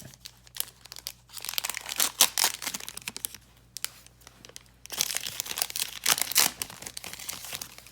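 Foil wrapper of a trading-card pack crinkling and tearing as it is opened. The rustling comes in two spells, the second beginning about halfway through.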